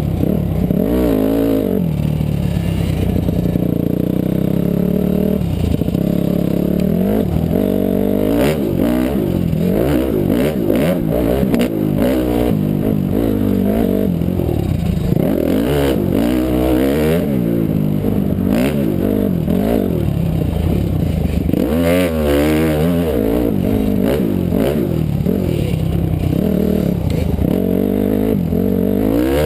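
2006 Honda CRF250R's four-stroke single-cylinder engine being ridden, its revs rising and falling every second or two, with scattered knocks and rattles from the bike.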